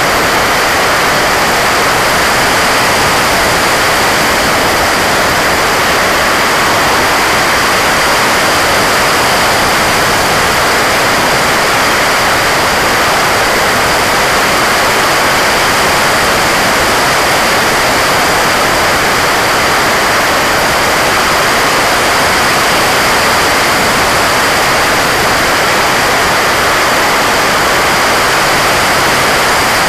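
Steady, loud rush of airflow and propulsion noise picked up by a camera riding on a fixed-wing drone in cruise flight, with a faint steady high-pitched tone running under it.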